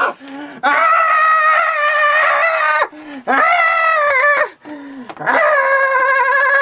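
A person wailing in three long, high-pitched cries with a slight wobble in pitch, each starting with a short lower sound; the last cry is the longest.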